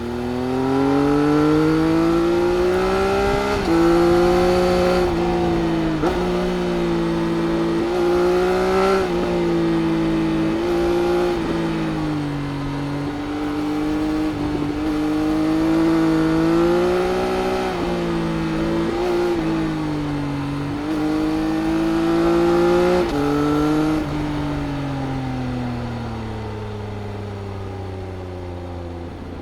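2018 Triumph Speed Triple RS's 1050 cc inline-three engine, breathing through its Arrow exhaust, pulling hard under throttle. Its pitch climbs and drops sharply several times as the rider works the throttle and gears, then falls steadily near the end as the bike slows.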